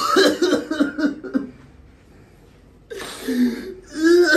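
A man coughing in two bouts, harsh with throat-clearing, with a short lull in between.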